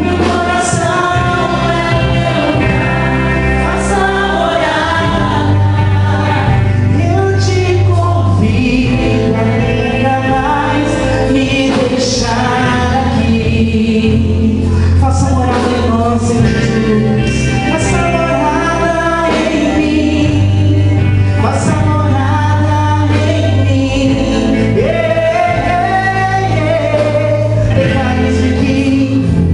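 Portuguese-language gospel worship song sung by male and female voices together over a band, with steady bass notes underneath.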